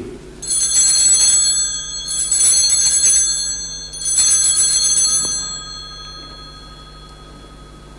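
Altar bells rung three times, each a short shaken peal, at the elevation of the consecrated host; the third peal rings out and fades away.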